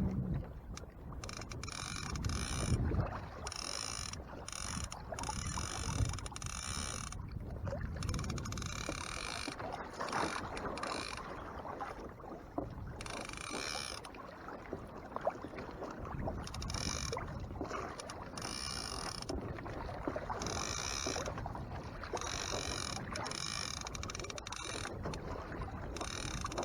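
A trolling reel paying out line to a Dipsy diver, its clicker ratcheting in spurts of a second or two with short pauses, over water sloshing against the kayak's hull.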